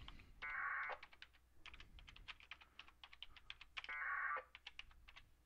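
Two short buzzing bursts of 1200-baud packet radio data tones from a VHF radio's speaker, about half a second in and about four seconds in, over the light clicking of typing on a computer keyboard.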